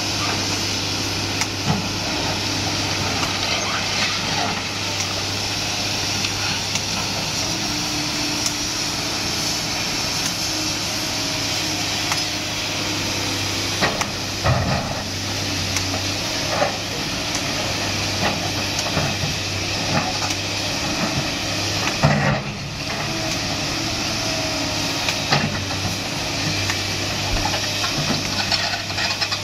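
Sany SY215C crawler excavator's diesel engine running steadily while it demolishes a brick and concrete wall. Scattered cracks and thuds come from rubble breaking and falling, with the loudest crash about twenty-two seconds in.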